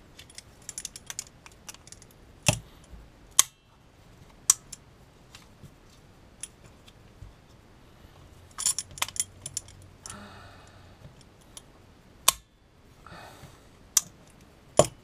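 Steel locking pliers and a C-clamp being handled and worked on the metal housing of an oil pressure sensor: scattered sharp metallic clicks and clacks, with a quick run of them about nine seconds in.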